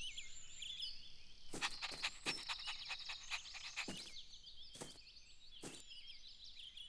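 Background birdsong ambience: many short, high chirps, with a few soft taps or clicks scattered through it, most of them between about one and a half and two and a half seconds in.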